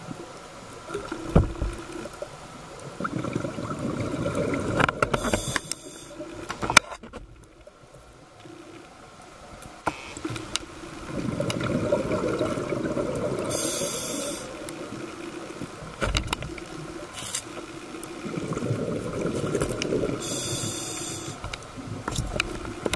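Scuba diver breathing through a regulator underwater: three breaths, each a spell of rumbling exhaust bubbles with a short regulator hiss near its end. A few sharp clicks between the breaths.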